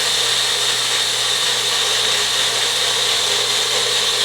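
Magic Bullet blender motor running steadily, blending a thick batter of protein powder, oatmeal, egg whites and water.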